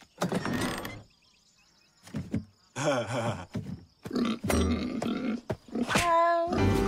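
Cartoon vocal noises and grunting, including a pig's grunts, with a short quiet gap about a second in; just before the end a held note leads into music.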